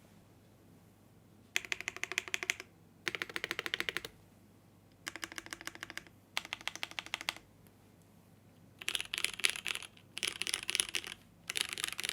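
Typing on a Geonworks Frog TKL mechanical keyboard with unlubed Boba U4T tactile switches, a POM plate and GMK keycaps. It comes as seven quick runs of keystrokes, each about a second long, with short pauses between them.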